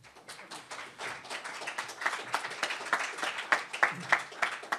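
An audience applauding, many hand claps overlapping, swelling over the first second and then holding steady.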